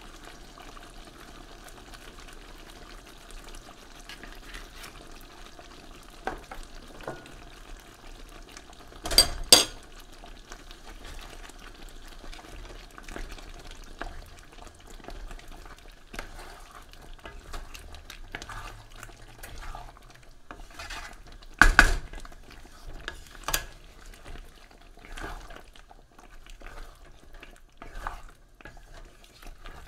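Chicken caldereta stew simmering in a pan with a low steady sizzle while a spoon stirs it. The spoon scrapes and clacks against the pan, loudest in two double knocks, one about nine seconds in and one around twenty-two seconds.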